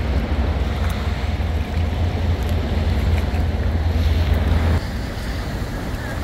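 Wind buffeting the microphone over the open sea, a loud low rumble with a wash of noise on top, easing a little about five seconds in.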